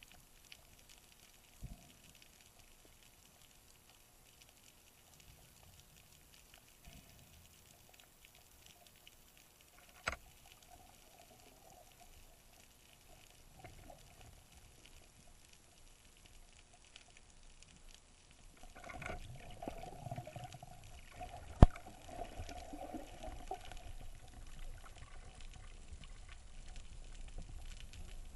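Muffled underwater sound through a camera housing: near-quiet with a few faint clicks, then stirring noise of movement building about two-thirds in, and a single sharp, loud snap of a speargun firing, followed by continued churning as the fish is taken on the shaft.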